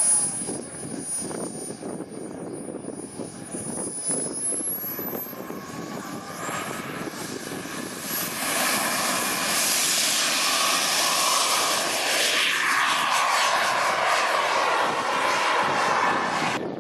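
Radio-controlled model jet's engine whining steadily, then spooling up with a rising whine about four to six seconds in. From about eight seconds in it runs at full power as a loud rushing noise, with a tone that falls in pitch a few seconds later as the jet starts its takeoff run.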